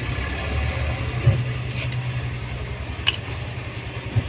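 A steady low mechanical hum, with a few short clicks and knocks as short 1-inch PVC air-vent pipe pieces are pushed and tapped into their fittings with solvent cement.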